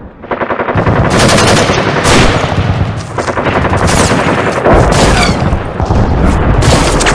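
Battle sound effects of rapid machine-gun fire and gunshots, loud and continuous, with a falling whistle about five seconds in.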